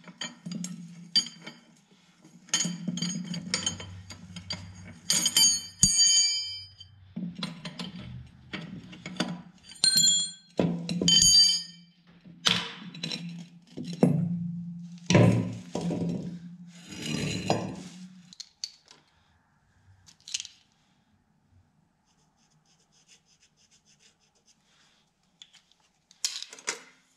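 Steel hand tools and brake parts clanking and clinking, a wrench and vise grips working the nut and clevis on a truck air brake chamber's push rod, with some clinks ringing briefly. A low steady hum sits under the clanking until about two-thirds of the way through, after which only scattered faint clicks remain, then a short burst of clanks near the end.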